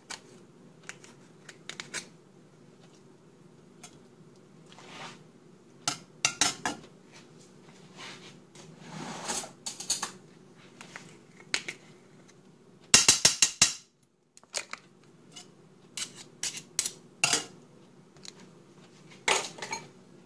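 Slotted metal spatula scraping and clinking against a stainless steel frying pan while butter melts in it. The strokes come in scattered, separate bouts, with a quick run of loud scrapes about two-thirds of the way through. A faint, steady low hum runs underneath.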